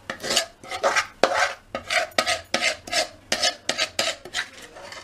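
A spatula scraping thick chocolate mawa burfi mixture out of a metal kadhai, in quick repeated strokes about three a second that stop near the end.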